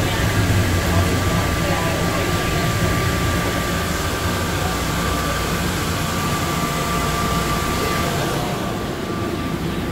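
Atlanta airport Plane Train, a rubber-tyred automated people mover, running through its tunnel and pulling into the station. A steady rumble and hiss of the moving car, with a thin steady whine that stops about eight seconds in.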